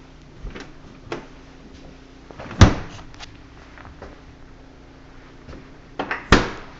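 The two doors of a side-by-side refrigerator being shut one after the other, each closing with a thud, the second about three and a half seconds after the first. The second thud comes just after a smaller knock.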